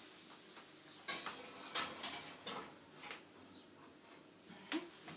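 A few separate light clinks and knocks of metal bakeware, a cupcake tray being set into the oven.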